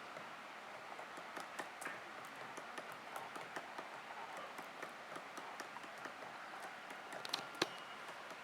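Woodpecker pecking at wood: a run of short, irregular taps, a few a second, with one sharper knock near the end.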